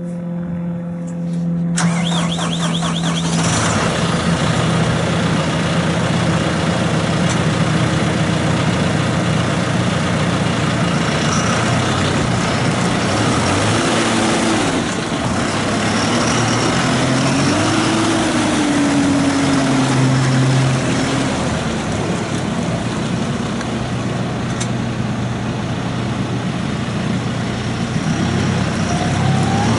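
Diesel engine of a 2020 John Deere 6120E tractor running. It idles steadily at first, then gets louder about two seconds in and keeps running with its pitch slowly rising and falling as the tractor is driven.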